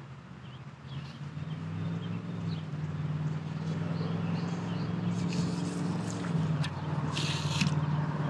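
A motor's steady low drone, an even hum that fades in about a second in and grows louder, with faint bird chirps above it. Near the end a short hiss comes as the baitcasting rod is swung into a cast.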